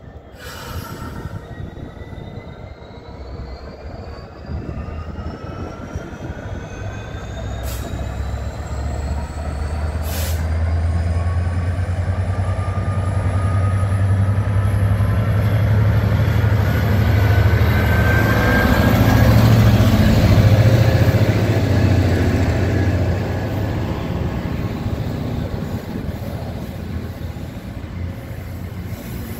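Class 66 diesel locomotive's two-stroke V12 engine pulling a long freight train away and past under power. Its deep drone builds to a peak as the loco goes by and eases as the wagons roll past, over a whine that rises steadily in pitch as the train gathers speed.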